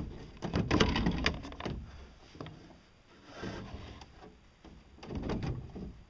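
Irregular knocks, clicks and rattles of plastic bearing holders and a fiberglass-covered pipe crank being handled and fitted together. The clatter is busiest in the first couple of seconds, dies down briefly, then picks up again near the end.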